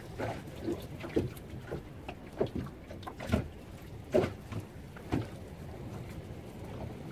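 Small waves slapping against the hull of a small boat, a sharp slap roughly once a second over a low rush of wind.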